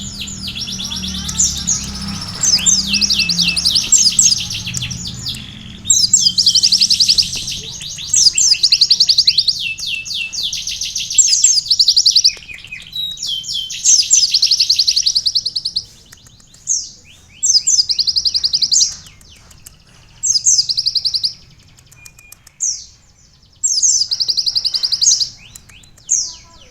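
A kolibri ninja (sunbird) singing a canary-style song: fast, high, rattling trills of rapidly repeated notes in long runs, breaking in the second half into bursts of about a second with short pauses between them.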